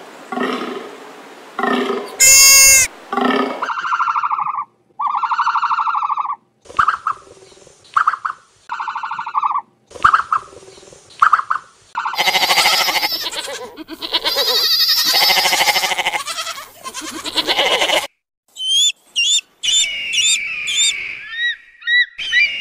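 A string of different animal calls edited one after another. First comes a series of short pitched cries, each under a second long. Then a long loud noisy call runs through the middle, and near the end a bird gives quick high falling calls.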